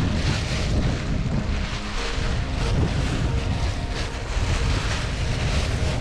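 Strong wind buffeting the microphone on a sailboat's deck, over the rush of the sea along the hull, with the Parasailor's sail cloth rustling irregularly as it is handled.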